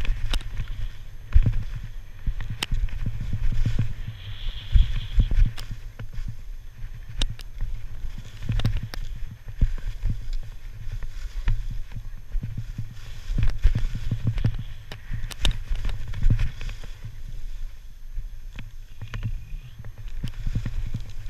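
Skis hissing and scraping on the snow of a fast downhill run, with frequent short knocks and clatters. Wind rumbles low and steadily on the microphone of the camera worn by the skier.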